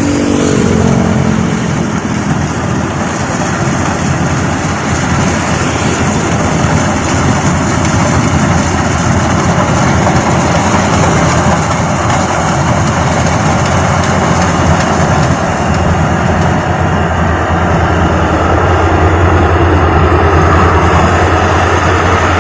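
Combine harvester running steadily while harvesting rice: a continuous engine drone under a dense spread of machinery noise, with the low hum growing slightly stronger near the end.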